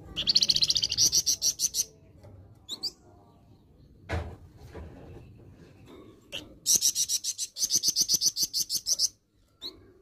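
A caged flamboyan songbird giving its harsh call in two runs of rapid, evenly repeated high notes, about eight a second, each run lasting about two seconds. The second run starts roughly halfway through, and a few single calls fall between the runs.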